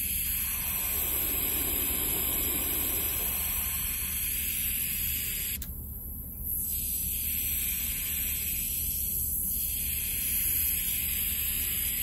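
Noise played through a Krohn-Hite 3202 analog filter set to high-pass and heard through a small desktop speaker: a steady hiss whose tone shifts as the filter's frequency knob is turned, thinning out briefly about six seconds in and again about nine seconds in.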